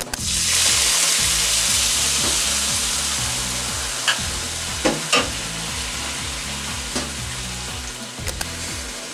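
Water poured into a hot frying pan of butter, sugar and sliced banana hits the pan in a loud sizzling hiss that starts just after the beginning and slowly dies down as the caramel bubbles. A few sharp clicks come through in the second half.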